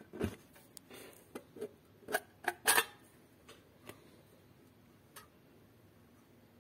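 Handling noise from a USRP B210 radio in its small enclosure being picked up off a desk and turned over in the hands: a run of light clicks and knocks, the loudest just under three seconds in, thinning out to a couple of faint taps.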